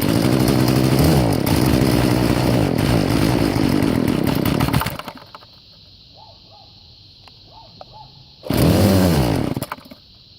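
Two-stroke McCulloch string trimmer engine running and revving for about five seconds, then stalling. A few seconds later it fires once more for about a second and dies. It runs poorly on a carburetor that needs replacing, which the owner puts down to the engine sucking air in.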